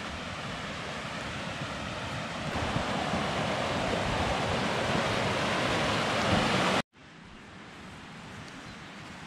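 Rushing mountain stream, a steady roar of water that grows louder, cutting off abruptly about seven seconds in to a much fainter steady hiss.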